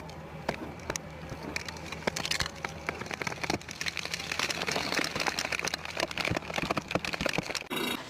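Excavator at work: a steady low engine hum under many sharp clicks, rattles and crackles.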